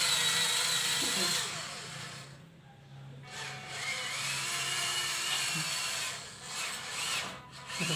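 Small electric motor and gears of a cardboard RC truck whirring as it drives. The motor stops for a moment a couple of seconds in, then runs again with a whine that rises and falls in pitch.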